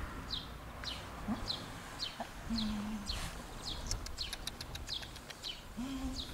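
A small bird calling over and over, a short falling high note about twice a second, with a few short low calls and a quick run of clicks midway.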